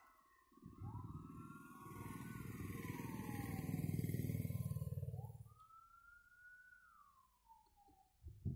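A wailing siren-like tone slowly rising and falling in pitch, over a rough rumbling noise that swells through the first half and then fades out about five seconds in.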